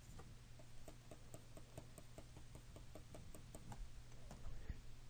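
Faint, quick, even ticking, about four or five light taps a second, from a pen stylus tapping on a graphics tablet; it stops about four seconds in.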